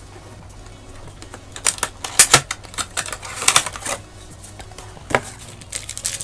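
Clear plastic packaging crinkling and crackling as it is handled and pulled off, with bursts of sharp crackles about two seconds and three and a half seconds in, and one more near the end.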